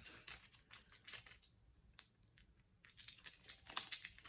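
Faint handling noises from a small plastic Bluetooth remote and its battery: scattered light clicks and rustles as the battery is turned and fitted.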